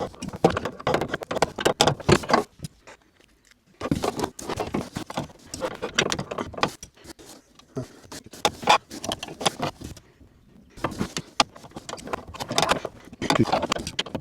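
Small metal parts clicking and rattling as a tailgate gas strut and its retaining clip are handled and worked at. It comes in three runs of quick clicks with two short pauses.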